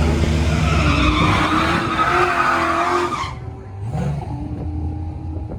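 A race car's engine held at steady high revs with tyres squealing, as in a burnout. About three seconds in the sound drops away sharply, leaving a quieter engine.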